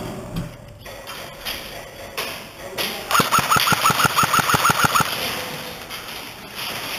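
Lancer Tactical AK74u airsoft electric rifle firing a rapid burst of about a dozen shots in under two seconds, each a sharp clack with a short twang, starting about three seconds in.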